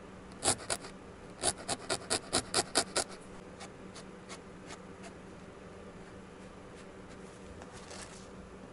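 Felting needle stabbing through loose wool into a foam felting pad, each jab a short scratchy crunch: two jabs, then a quick run of about eight at roughly five a second, then a few fainter ones. Near the end a brief scrape as the foam pad is handled.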